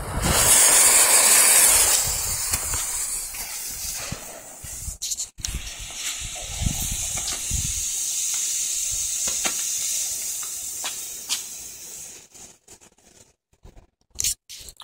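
Butane torch lighter hissing at the fuse, then a Black Cat smoke ball hissing steadily as it burns and pours out blue smoke, dying away about 12 to 13 seconds in.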